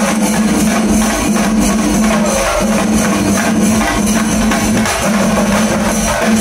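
Shingari melam ensemble playing loud and fast: rapid chenda drum strokes with ilathalam cymbals clashing, over a held low note that breaks off about once a second.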